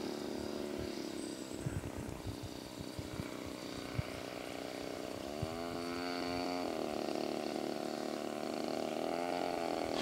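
The DLE 35cc single-cylinder two-stroke petrol engine of an RC Spitfire model, heard in flight. Its pitch rises sharply about five seconds in, holds, falls back near seven seconds, and rises briefly again near the end. Low thumps of wind on the microphone come in the first few seconds.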